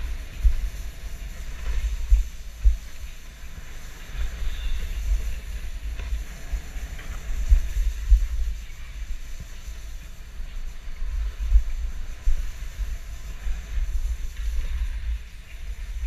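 Wind buffeting the camera microphone as it rides downhill on a snowboard, a low gusting rumble that swells and dips with a few short thumps, over a faint hiss of the board sliding on the snow.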